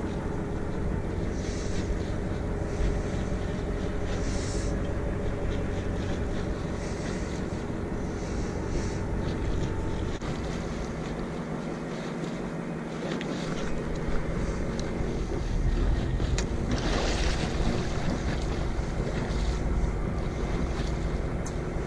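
Boat's engine idling steadily under wind rushing over the microphone, with a louder rush about three-quarters of the way through.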